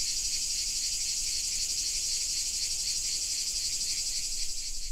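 Cricket chirping sound effect: a steady, high-pitched, fast-pulsing trill.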